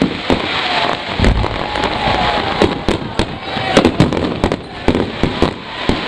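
Fireworks display going off: a rapid, irregular run of sharp bangs and crackling, several reports a second.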